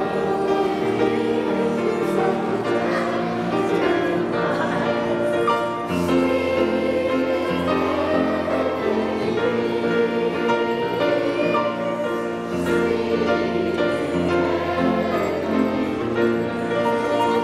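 Young children singing a Christmas carol over held accompanying notes, with a deeper bass layer joining about six seconds in.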